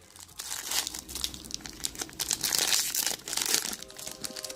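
Foil wrapper of a Pokémon card booster pack crinkling and tearing as it is pulled open by hand; the pack is stubborn to open.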